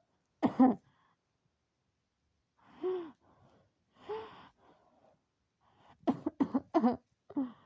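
A person coughing: one short cough about half a second in, two breathy sighs around three and four seconds in, then a quick run of about five coughs near the end.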